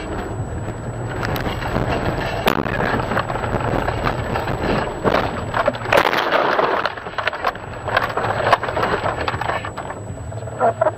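Car running off a snowy road: a steady rumble of tyres and engine, then branches scraping and snapping against the body as it ploughs through roadside brush into deep snow. Several sharp knocks ring out, the loudest about six seconds in, and the low rumble falls away soon after.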